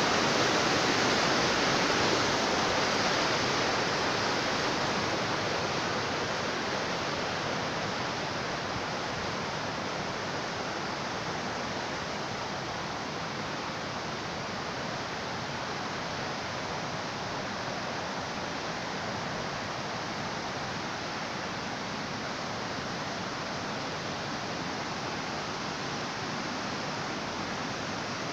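Fast mountain river rushing over rocks: a steady noise of white water, which fades over the first dozen seconds and then holds steady.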